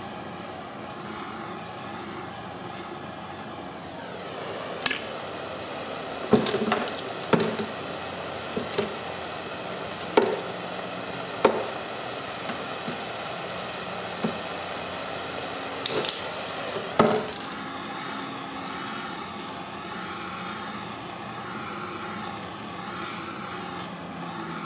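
Handheld propane torch burning with a steady hiss as it heats and softens a plastic grass-catcher chute. About ten sharp knocks and clicks fall in the middle of the stretch as the chute is worked with pliers.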